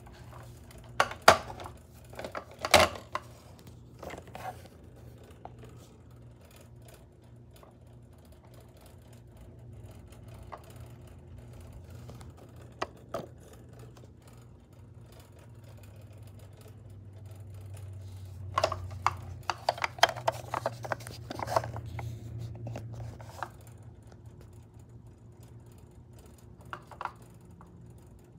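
Toy car's small battery-powered motor and plastic gearbox running with a low steady whir, louder for several seconds past the middle. Plastic clicks and knocks come from the car being handled, in a cluster near the start and a run during the louder stretch.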